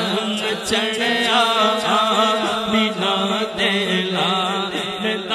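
A man singing a Punjabi naat solo in long, wavering melismatic lines, over a steady low drone.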